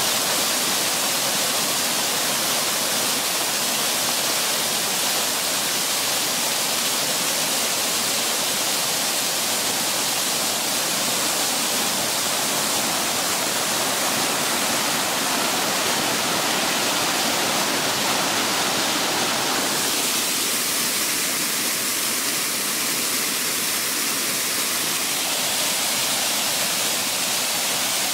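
Steady rush of falling and splashing water from a large garden fountain's tall jets and stone cascade.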